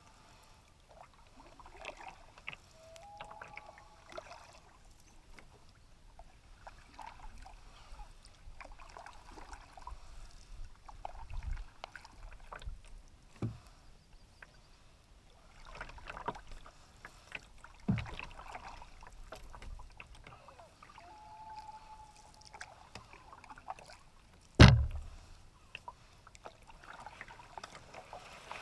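Canoe paddling: water swishing at each paddle stroke, with a few soft knocks and one loud, sharp knock about three-quarters of the way through. Short, clear bird calls are heard briefly near the start and again later.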